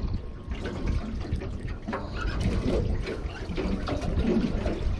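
Water sloshing and lapping against the side of a boat, an uneven splashing that comes and goes.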